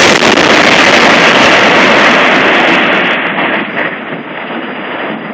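Aftermath of an explosive bridge demolition: the blast's loud, sustained noise and the bridge structure crashing down. It eases after about three seconds into a fainter, continuing rumble.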